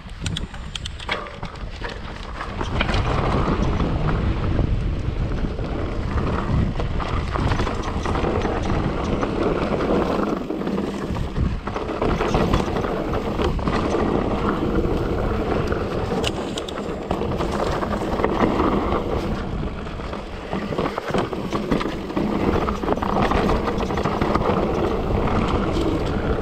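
Mountain bike riding a rough trail: tyres rumbling over the dirt and rock, with continual rattling and clicking from the bike. It gets louder about two and a half seconds in.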